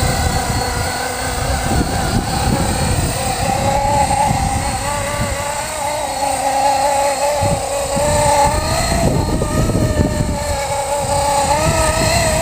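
Blade SR electric radio-controlled helicopter in a Hughes 500D scale fuselage flying: a steady whine from its motor and rotors that wavers slightly in pitch, over gusty wind rumble on the microphone.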